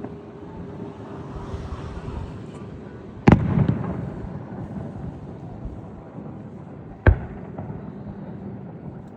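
Two firework bangs about four seconds apart, the first followed by a short rumbling echo.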